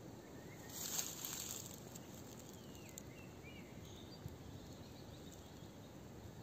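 Faint outdoor woodland ambience with a few faint bird chirps near the middle and a brief rustle about a second in.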